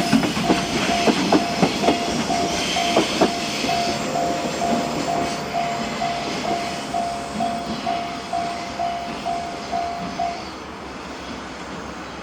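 Japanese level-crossing electronic alarm ringing about three times a second as a train passes. Its wheels clack over the rail joints in the first few seconds, and the train noise then fades away. The alarm stops about ten seconds in, as the crossing clears.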